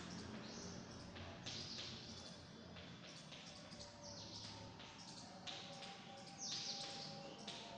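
Chalk on a blackboard: a rapid series of short scratching strokes as small squares are drawn.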